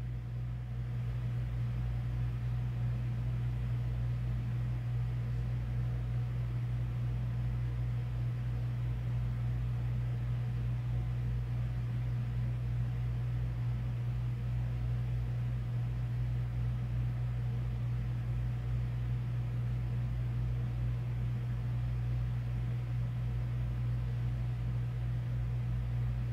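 A steady low hum with faint hiss that stays unchanged throughout, with no other events.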